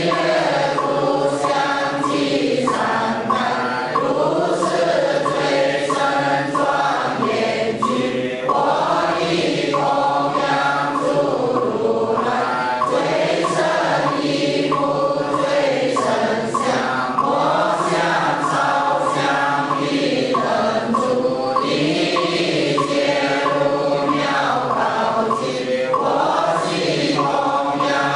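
A group of voices chanting a Buddhist liturgy in unison, in slow, sustained melodic lines.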